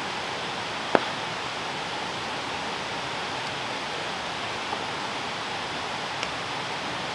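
Steady rushing background noise, with one sharp click about a second in.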